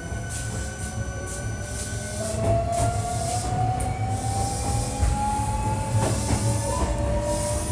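Hankyu 1300 series electric train accelerating. Its traction motor whine rises slowly and steadily in pitch over a low running rumble, with a few wheel knocks over rail joints. The car is noted for an unusual acceleration sound.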